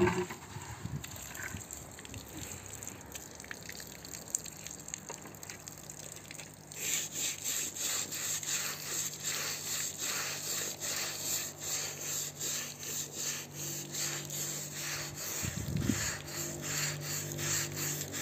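Stiff plastic hand brush scrubbing a wet, soapy carpet in quick back-and-forth strokes, a few a second, starting about seven seconds in.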